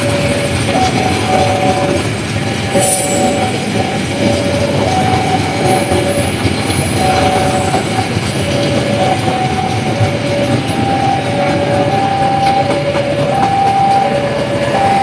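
A railway level-crossing warning alarm sounding two alternating tones, a higher then a lower, in an even repeating pattern. Under it runs the steady rumble and wheel clatter of a passing train.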